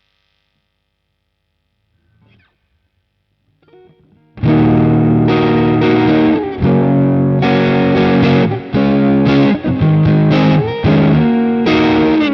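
Electric guitar played through a Caline Pure Sky transparent overdrive pedal (a Timmy clone), giving a crunchy overdriven tone: chords strummed in short phrases with brief stops, starting about four seconds in after a faint click. The last chord rings out at the end.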